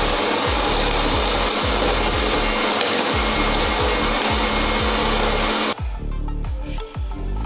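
Electric kitchen blender motor running at full speed, whirring through a jar of milk and fruit. It is switched off and stops abruptly near the end.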